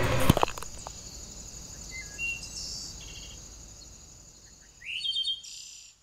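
A loud thump of a boot stomping down as the music cuts off, with a couple of smaller knocks after it. Then quiet woodland ambience: a few short bird chirps over a steady high insect-like drone, with a louder burst of bird calls near the end.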